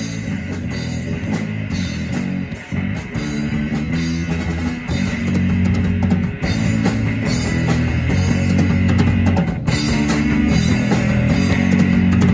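Live rock band playing an instrumental passage: electric guitars, bass guitar and drum kit.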